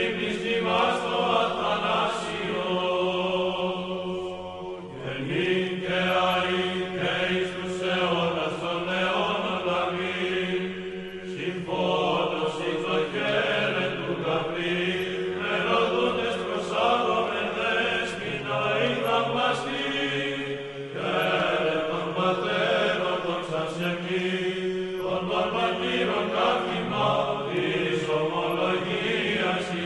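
Byzantine chant sung by a choir: a held low drone note beneath a slow melodic line, with the drone moving to a new pitch several times.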